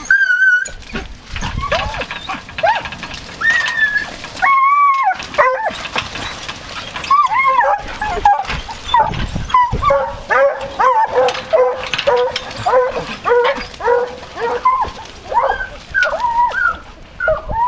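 A pack of foxhounds in full cry on the hunt, many hounds baying at once. Their overlapping calls rise and fall in pitch, with a few longer, steadier notes among them.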